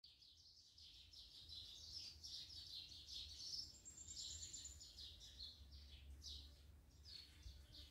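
Faint songbirds chirping and twittering in a quick run of short calls, with a thin high whistle about four seconds in, over a faint low rumble.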